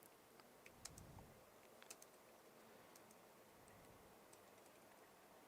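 Faint, scattered key clicks as someone types on a small foldable Bluetooth keyboard. The presses are uneven and come mostly in the first couple of seconds, with a few sparse ones later.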